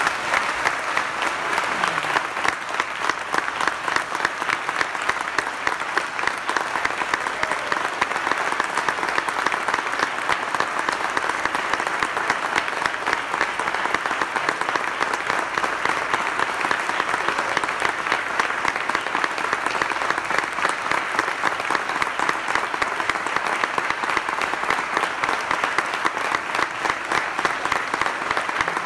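A congregation applauding: many hands clapping steadily without a break.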